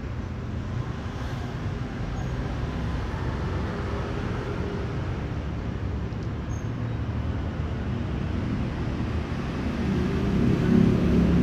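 Steady low rumble of motor traffic, with a vehicle engine getting louder near the end.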